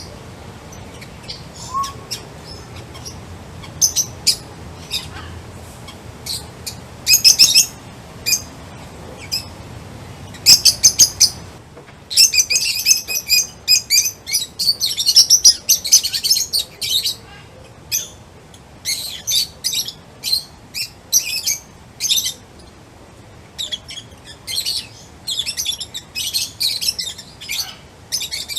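Small birds chirping: scattered short, high chirps at first, then a dense run of rapid chirps after an abrupt change in the background.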